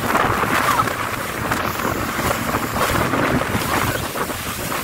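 Jet ski running at speed across choppy sea: a steady rush of water and spray mixed with engine noise, under heavy wind buffeting on the microphone.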